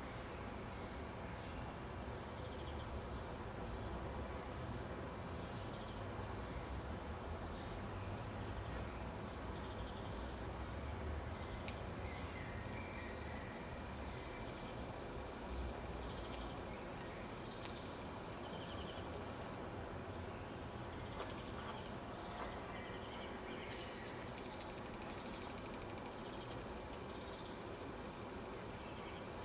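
Outdoor ambience: a steady low rumble and hiss, with an insect chirping at an even pace of about two high chirps a second.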